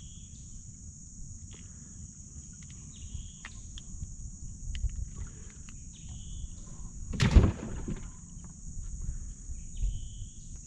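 Steady high-pitched insect chorus from the riverside woods, with a short high call repeating about every three seconds and a low rumble underneath. A single loud knock about seven seconds in.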